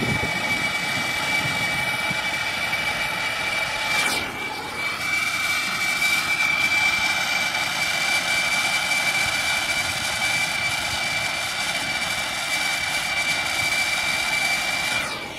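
Hand-held gas torch burning steadily with a hiss and a thin high whistle, its flame heating a crimped copper wire splice while solder is fed in.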